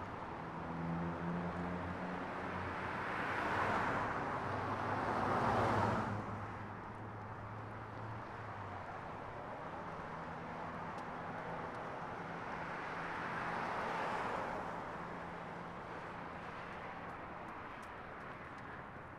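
Cars passing on a street: two swells of engine and tyre noise, the first building up and cutting off about six seconds in, the second peaking around fourteen seconds, over the low hum of an engine running nearby.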